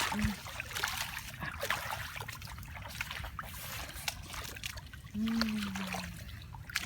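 Water splashing and trickling in many small irregular splashes, with a brief low voice sound near the end.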